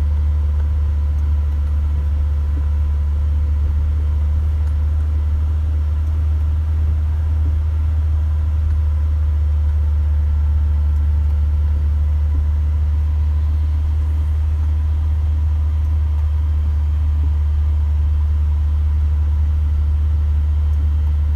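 Isuzu FVR truck's diesel engine droning steadily under way, heard from inside the cab: an even low rumble with faint steady tones above it that stays unchanged throughout.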